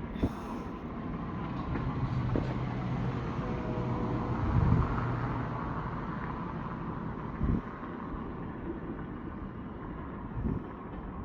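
A motor vehicle passing, its low hum swelling to a peak about halfway through and then fading, over steady outdoor background noise. About five short dull thumps are scattered through it.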